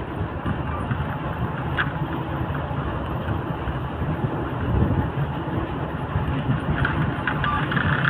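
Steady engine and road noise of a vehicle driving along a road, with a brief click about two seconds in.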